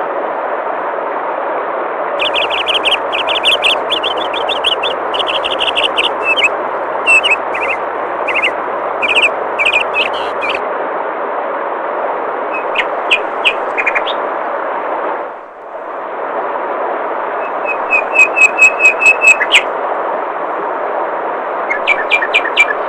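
Steady rush of flowing water with songbirds chirping over it: a long run of quick high chirps over the first ten seconds, a few more later, and a fast series of about eight chirps near the end. The water noise dips briefly and returns about two-thirds of the way in.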